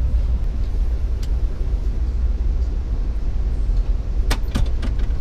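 Steady low rumble of a passenger train in motion, heard from inside the coach. A single sharp click comes about a second in, and a quick run of four or five sharp clicks comes near the end.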